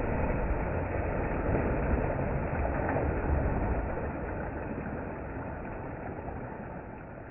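Heavy water splashing as a person leaps into waist-deep pond water and wades through it. The churning dies down gradually over the last few seconds.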